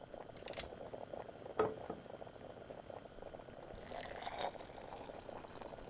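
Low kitchen ambience of a pot bubbling on the stove, a steady fine bubbling with a few light clicks and a slightly louder stretch about four seconds in.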